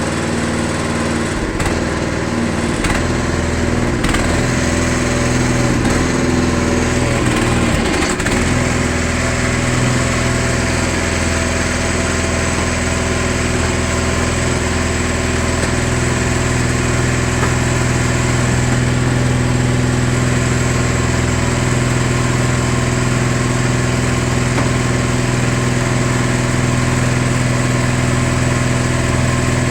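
Cardboard baler's motor-driven hydraulic power unit running steadily, with a brief change in its pitch about eight seconds in.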